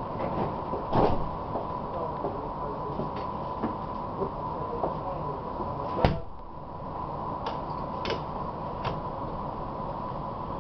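Tram interior running noise with a faint steady tone, broken by several sharp clicks and knocks; the loudest knock comes about six seconds in, and the noise drops briefly after it.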